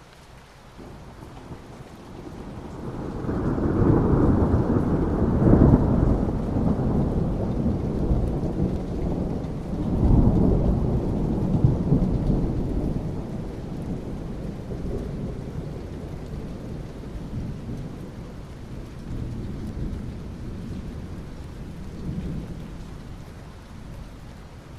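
Rolling thunder over steady rain falling on asphalt. The rumble builds a couple of seconds in, swells again around ten seconds, then slowly dies away.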